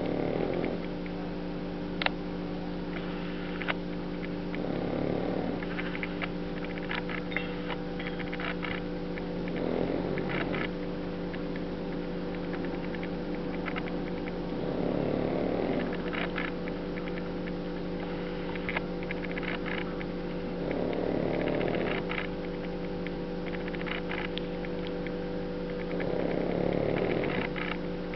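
Pekingese dog snoring in its sleep, one rasping snore about every five to six seconds, six in all, over a steady electrical hum.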